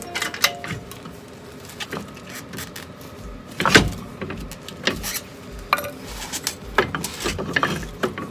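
Irregular metal clinks and knocks as a car jack raises the lower suspension control arm to seat a new ball joint, the loudest knock about four seconds in.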